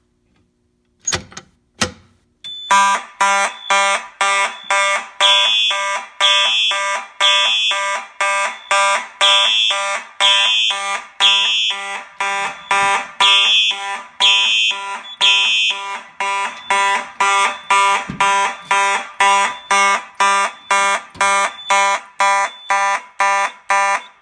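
Two sharp clicks as the pull station is pulled, then Simplex fire alarm horns sounding in a steady on-off pulse, about one and a half pulses a second: the system has gone into alarm.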